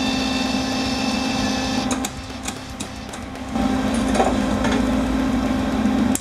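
MIG welder's wire-feed motor running with the gun trigger held, pushing new wire through the liner and out the contact tip: a steady hum that stops about two seconds in and starts again about a second and a half later, cutting off at the end.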